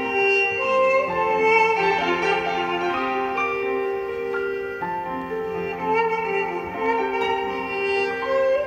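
Live instrumental music: a kamancheh (bowed spike fiddle) plays a flowing melody over sustained keyboard accompaniment.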